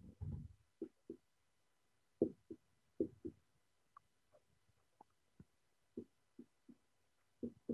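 Dry-erase marker writing on a whiteboard: a string of faint, irregular soft taps as the pen strokes and lifts, with a couple of short squeaks.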